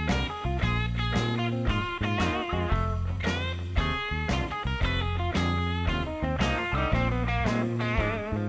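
Background music: a guitar-led instrumental with plucked notes and wavering string bends over a steady bass.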